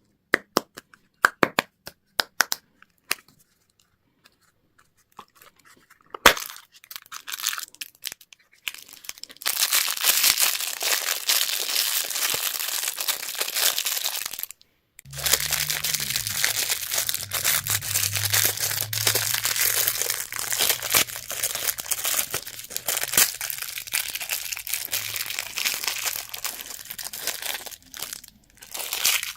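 Packaging being unwrapped: a run of sharp plastic clicks, then two long stretches of wrapper tearing and crinkling with a short pause between them.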